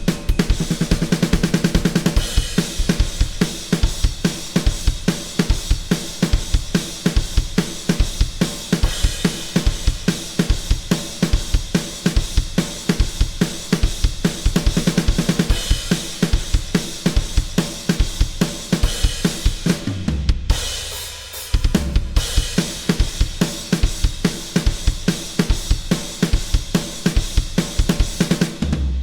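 Drum kit played on its own with no other instruments, a steady driving beat of bass drum, snare, hi-hat and cymbals. There is a short break about twenty seconds in before the beat comes back, and the playing stops right at the end, leaving a ring to fade.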